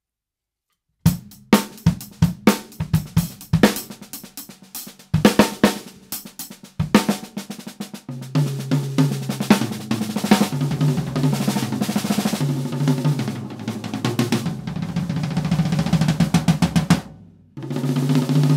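Tama Starclassic Walnut Birch drum kit with a Birch Bubinga snare, played with sticks. It begins about a second in with single strikes and short fills on snare, toms and kick, then settles into a steady, busy beat with cymbals from about eight seconds in. The beat breaks off briefly near the end and starts again.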